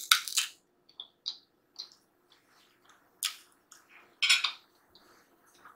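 Close-miked gnawing on a fried chicken drumstick bone, with scattered sharp crunches and clicks and quiet gaps between, along with clinks of a knife and fork against a plate. The loudest bursts come just after the start and again three to four and a half seconds in.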